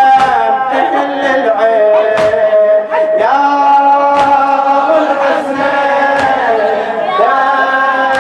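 Men chanting a Shia latmiya elegy to Imam Ali in long, held, wavering notes, with sharp beats about once a second from the mourners' chest-beating (latm).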